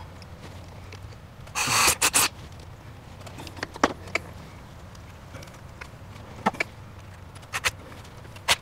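Electrical wires and a metal junction box being handled, with a loud scraping burst about two seconds in and a few scattered clicks and taps after it.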